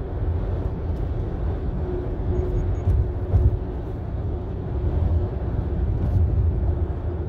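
Steady road noise of a car cruising at highway speed, heard inside the cabin: a low rumble from the tyres and engine with a faint steady hum above it.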